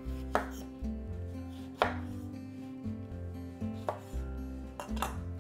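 A chef's knife cutting through a lemon on a wooden cutting board: a few sharp knocks of the blade meeting the board, spaced unevenly a second or more apart.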